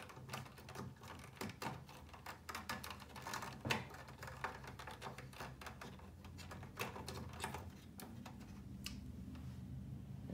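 Irregular small clicks and taps of fingers handling wires and metal speaker-terminal parts inside an open amplifier chassis, over a steady low hum.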